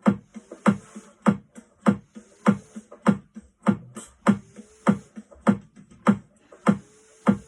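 Instrumental music with no singing: a steady, sparse beat of sharp drum hits, a little under two a second, over a hissy high cymbal-like layer.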